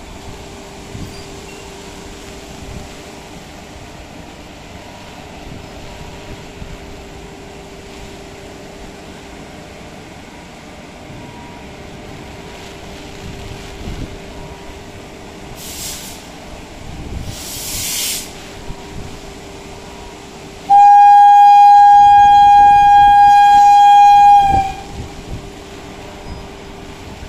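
Twin WAP-4 electric locomotives standing at the platform with a steady low hum, and two short hisses around the middle. Near the end comes one long locomotive horn blast of about four seconds, a single steady note and the loudest sound, given as the train prepares to depart.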